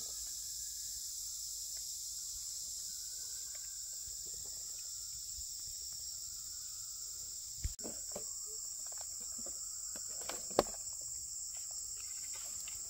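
A steady, high-pitched chorus of forest insects chirring without a break. A few sharp knocks stand out above it, one about eight seconds in and a louder one about ten and a half seconds in.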